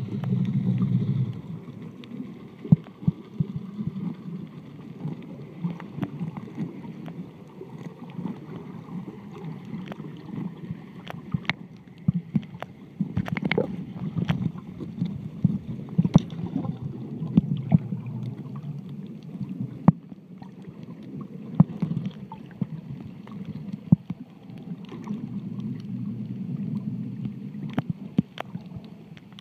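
Muffled underwater sound picked up by a submerged camera: a low steady rush, louder for about the first second, with scattered sharp clicks and pops.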